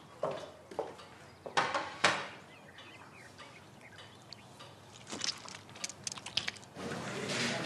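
A few sharp knocks and clinks of kitchen dishes, then short wet clicks of someone biting and sucking on an orange slice. A steady rushing noise comes in near the end.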